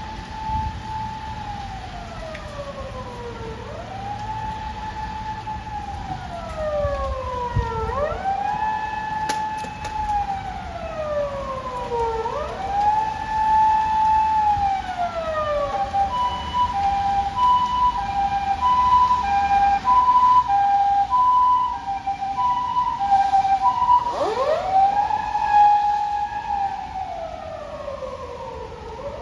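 A Japanese ambulance's electronic siren on an emergency run, loud and close. It wails in slow sweeps, each rising quickly, holding, then falling, about every four seconds. About halfway through it switches to the rapid two-note hi-lo "pee-po" tone for several seconds, then goes back to the wail near the end, over a low engine rumble.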